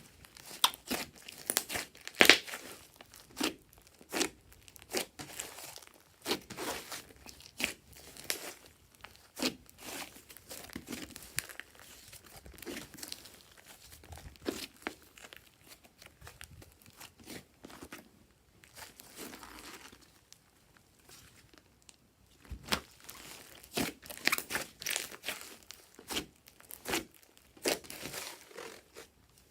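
Glossy slime being squished, stretched and mixed by hand: irregular sticky pops and crackles, quieter for a few seconds past the middle.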